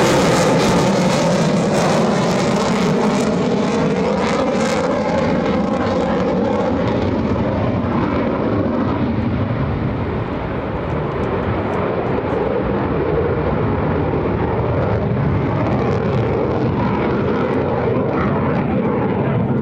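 F-35C Lightning II's single Pratt & Whitney F135 turbofan engine running loudly in flight. The hiss fades over the first few seconds as the jet moves off, leaving a steady deep rumble.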